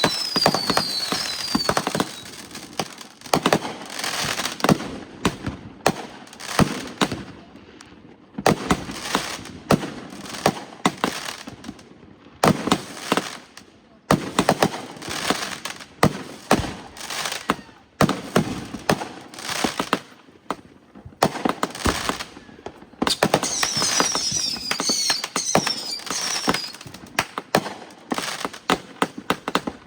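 Fireworks going off: many sharp bangs and pops in irregular clusters with short lulls between them, and a run of short, high, falling whistles about three-quarters of the way through.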